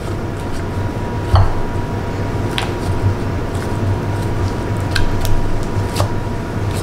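Gloved hand working raw chicken through flour, beaten egg and panko in glass bowls: soft squishing with about four light knocks against the glass. A steady low hum with a faint high tone sits underneath.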